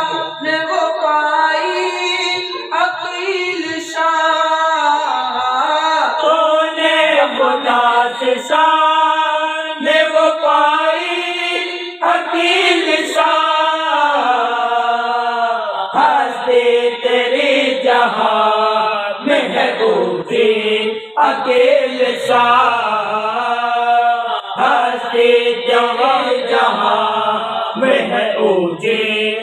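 Unaccompanied Islamic devotional singing, a naat or manqabat chanted by men's voices in long melodic phrases.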